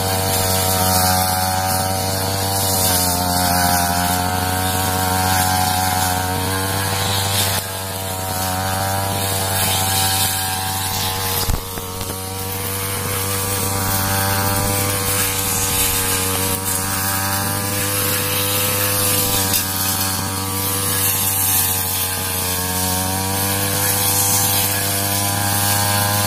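Backpack brush cutter's small petrol engine running at working speed while cutting weeds, its pitch dipping and rising slightly with the load. A brief sharp knock about halfway through.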